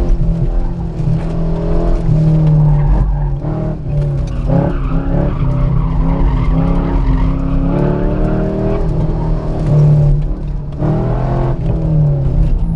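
1999 Chevrolet Corvette's LS1 V8 heard from inside the cabin, revving up and down repeatedly as the car is driven hard between corners, with tires squealing through the turns.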